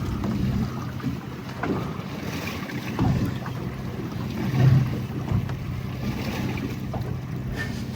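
Steady low hum of a fishing boat's engine with wind buffeting the microphone, and a couple of dull knocks about three and five seconds in.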